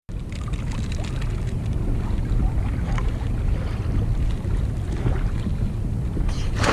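Wind buffeting the microphone over water lapping against a kayak, with a loud rush of splashing starting near the end.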